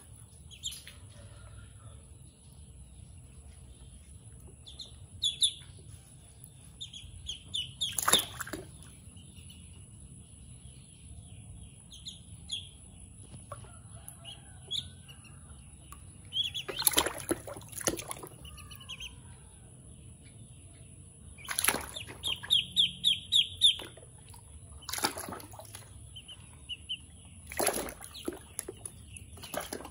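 Ducklings bathing in a basin of water: splashing and flapping as they dip and shake, with several sharp splashes. Between them come short, rapid runs of high peeping.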